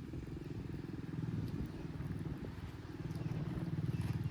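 An engine running steadily, a low, rapidly pulsing rumble that grows a little louder about three seconds in.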